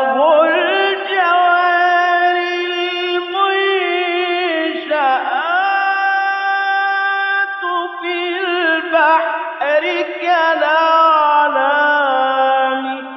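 A man chanting Quran recitation in the melodic, ornamented mujawwad style: one unbroken vocal line with long held notes and winding turns of pitch.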